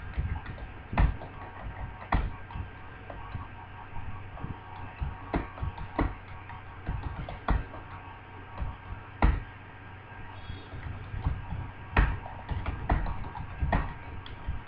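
Typing on a computer keyboard: irregular keystroke clicks, several a second, at about 46 words a minute, over a faint steady hum.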